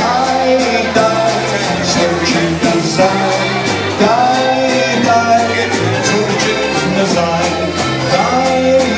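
Live polka band playing: several accordions and electric guitars over a steady drum beat.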